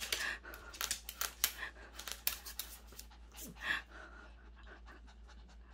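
A bichon frise's claws clicking and scrabbling on the lid of a closed laptop as it clambers onto it: a quick, irregular run of light ticks that dies away after about three seconds.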